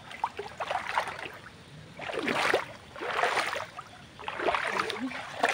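Shallow muddy water splashing and sloshing in several bursts as people wade through it and grope along the bottom with their hands for fish.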